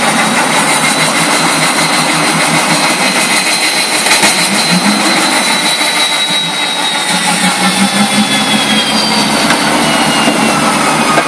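Small pickup truck's engine revving hard with its wheels spinning in flooded mud, a loud steady rush with a high whine that slowly falls in pitch.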